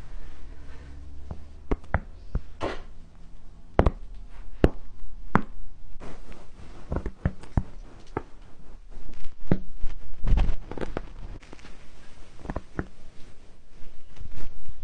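Lower back cracking: a series of sharp pops and clicks, some in quick pairs, over rustling, with a dull thump about two-thirds of the way in.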